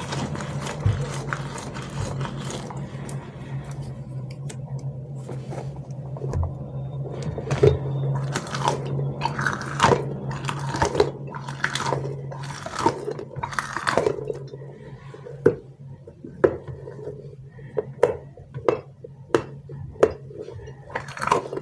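Rubbery squishy stress toys squeezed in the hand, first a stretchy dragon figure and then a spiky puffer ball, making irregular sticky clicks, squelches and crackles that come faster and sharper in the second half. A steady low hum runs underneath for much of it.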